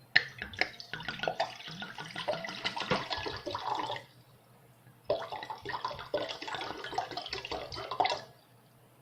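Water poured from a wine bottle into a bowl, splashing and gurgling in two pours of about four and three seconds, each starting and stopping abruptly.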